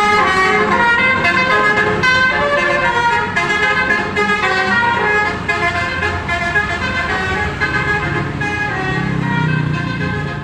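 Indonesian 'telolet' bus horn: a multi-tone musical horn playing a quick melody of shifting notes over a low engine rumble, fading a little towards the end.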